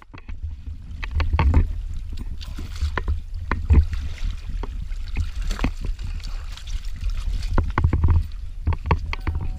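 Water splashing and slapping against a boat's hull as a hooked bluefin trevally thrashes at the surface and is hauled aboard by hand, with many short knocks and splashes over a steady low rumble.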